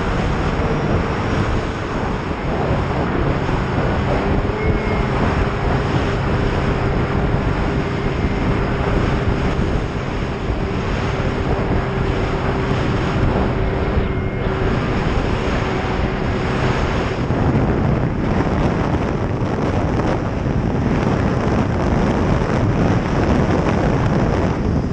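Snowmobile engine running steadily at riding speed, mixed with wind buffeting the microphone.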